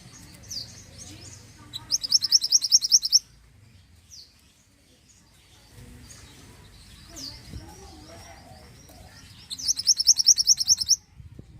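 Mantenan (small minivet) calling: thin, high downslurred chirps scattered throughout, and twice a loud, fast trill of repeated high notes about a second long, about two seconds in and again near the end.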